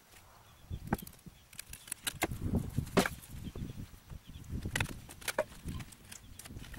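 Irregular knocks, cracks and clatter of wooden framing boards and debris being pried and pulled out of a collapsed camper frame, the loudest crack about three seconds in.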